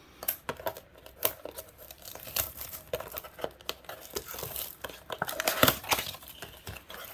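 A blaster box of trading cards being torn open, its wrapping crinkling and tearing in irregular crackles, busiest about five to six seconds in.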